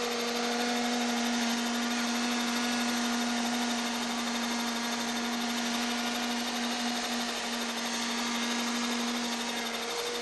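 Radio-controlled model helicopter's small engine running at a steady high-pitched whine as the helicopter hovers.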